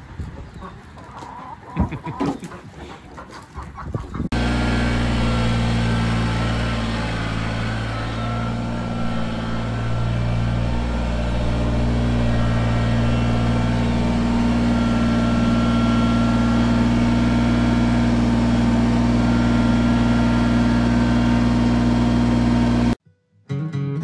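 Chickens clucking for the first few seconds, then, after a sudden change, a Kubota BX23S compact tractor's three-cylinder diesel engine running steadily at a constant speed. The engine sound cuts off about a second before the end, and acoustic guitar music starts.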